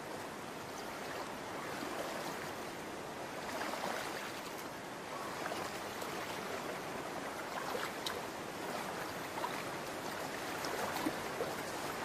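Shallow stream water running steadily, with a few faint small splashes.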